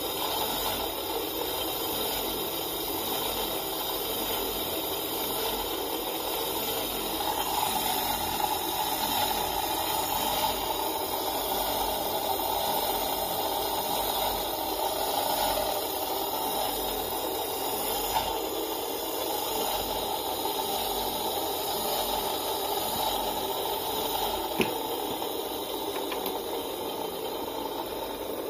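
Single-phase capacitor electric motor running with no load through a series test lamp, its hum swelling and easing as the speed rises and falls. The owner puts this hunting down to the motor running free with no load. A sharp click comes near the end, after which the sound is a little quieter.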